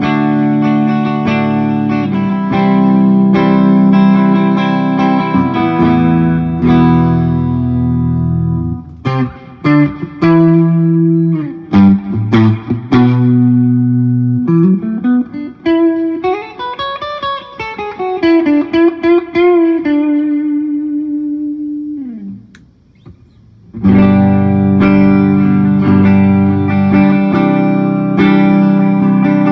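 Knaggs Kenai electric guitar played through a Marshall JCM 2000 valve amp: ringing chords, then short clipped notes, then a lead line with string bends and vibrato. After a brief drop-out near the end, full chords ring out again.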